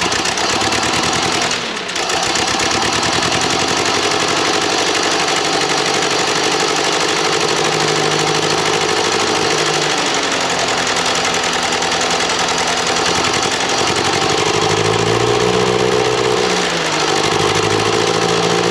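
1932 Ford Model B four-cylinder flathead engine running just after being started for the first time since repairs, with no knock. Its speed changes several times, dipping briefly about two seconds in and picking up again near the end.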